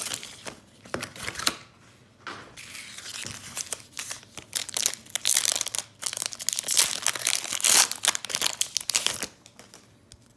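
Foil Pokémon booster pack wrapper crinkling and tearing as it is worked open by hand, in irregular crackles that are thickest in the middle and die down about a second before the end.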